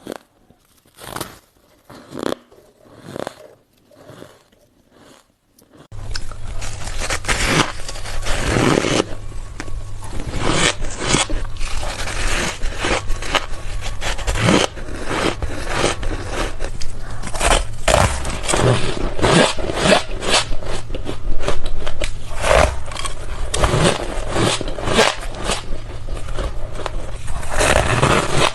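Close-miked ice being bitten and chewed: separate crisp crunches about once a second, then from about six seconds a dense, continuous crunching and scraping of ice.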